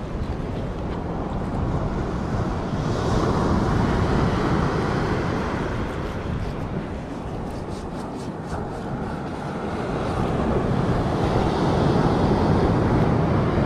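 Ocean surf washing on the beach, swelling twice into louder waves, with wind buffeting the microphone. A few faint ticks come about halfway through.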